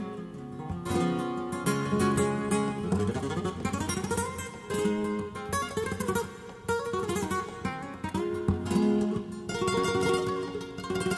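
Flamenco guitar played live: quick runs of single notes, some climbing in pitch, alternating with strummed chords.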